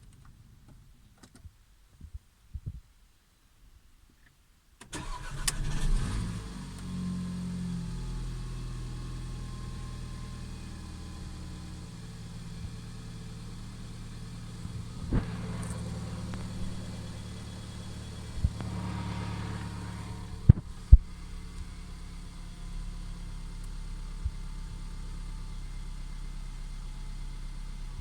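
Mercedes-Benz CLA 250's 2.0-litre turbocharged four-cylinder petrol engine starting about five seconds in, flaring up briefly, then settling to a steady idle. A few sharp clicks sound over the idle in the second half.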